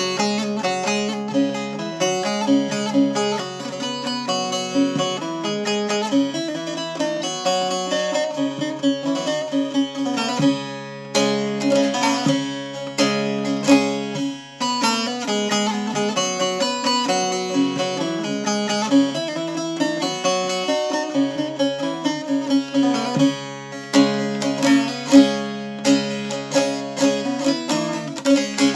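Short-neck bağlama with a carved mulberry bowl being played: a continuous melody of plucked notes over steadily held lower notes.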